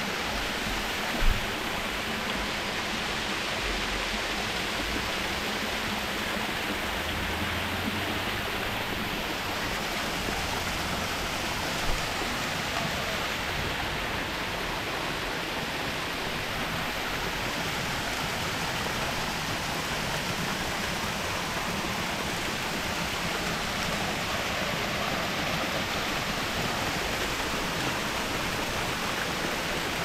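Waterfall running steadily: an even rush of falling water. A sharp knock about a second in and a fainter one around twelve seconds.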